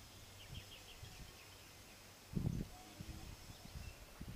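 Birds chirping outdoors. A quick run of five or six short, high chirps comes about half a second in, with a few fainter chirps later. Underneath are low, uneven rumbles, and a louder low thump comes a little past halfway.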